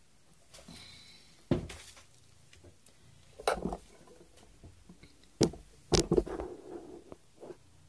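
Handling noises: a few sharp knocks and clicks spread through, with light rustling between them, as objects are picked up and set down.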